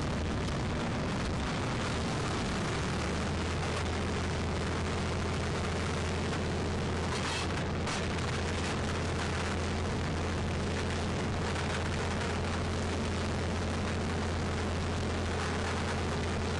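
Fishing trawler's diesel engine running steadily, a low hum under a constant rush of wind and sea noise, with a brief louder gust about halfway through.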